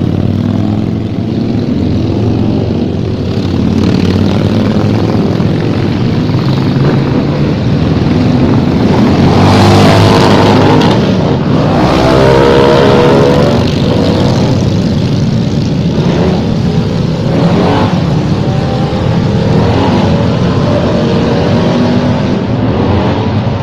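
A road vehicle's engine running on the move, with road and wind noise. The engine pitch rises and falls several times about ten seconds in.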